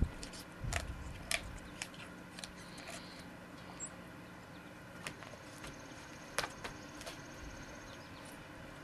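German Shepherd gnawing a Chewber chew toy, giving irregular sharp clicks and crunches as its teeth bite into and tear the toy.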